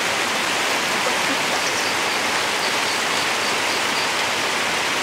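Shallow rocky stream rushing steadily over stones and small rapids.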